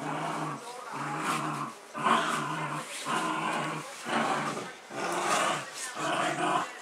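Dog growling in a series of seven short, even growls, each under a second long, with brief pauses between them.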